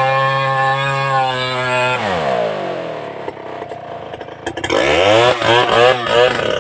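Stihl two-stroke chainsaw running steadily at high revs, then the engine winds down about two seconds in to a low idle. Near the end the throttle is blipped again and again, the engine revving up and dropping back in quick succession.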